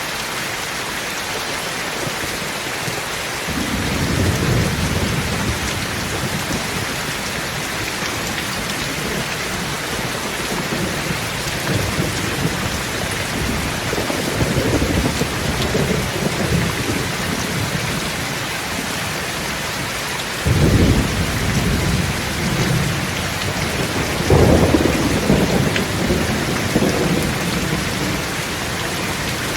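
Steady heavy rain, with low rumbles of thunder rising and fading several times.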